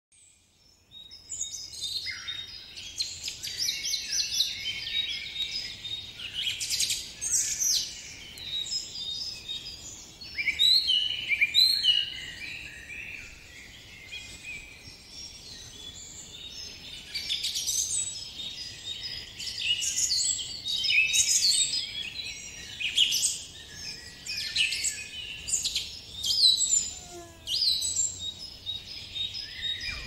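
A chorus of several songbirds singing and calling over one another: many quick high chirps, trills and sweeping notes, starting about a second in.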